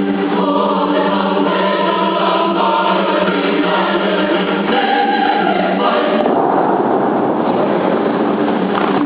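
Show music with choir-like singing for about six seconds. Then a steady rushing noise takes over: the Bellagio fountain's water jets spraying.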